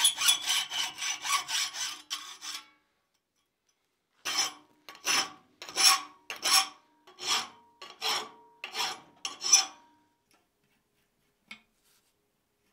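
Hacksaw cutting through a steel hook blank in quick, even strokes that stop about two and a half seconds in. After a short pause, a hand file rasps across the metal in about ten slower strokes, reshaping the blank's edge.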